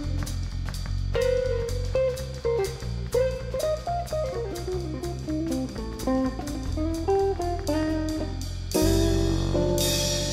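Background music: a guitar playing a melody over bass and drums, ending on a held chord with a cymbal crash near the end.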